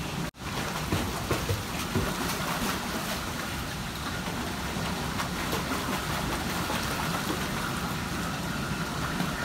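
Pool water splashing from a small child's kicking legs as she swims. It is a steady rushing splash, with a few sharper slaps about a second in.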